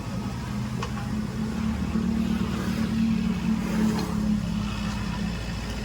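Excavator engine running steadily, working harder and louder for a couple of seconds in the middle as the machine digs, then easing off.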